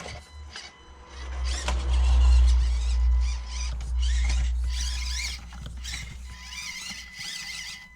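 A small RC crawler's electric motor and gears whine, the pitch rising and falling as the throttle is worked. Under it runs a low rumble, loudest in the first half.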